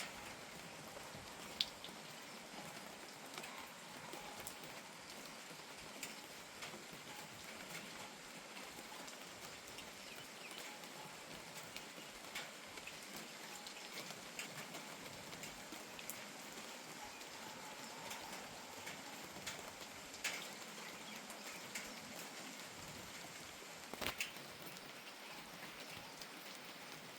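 Steady, gentle rain, with scattered drops tapping sharply on nearby surfaces and a few louder drips at about one and a half seconds, about twenty seconds and about twenty-four seconds.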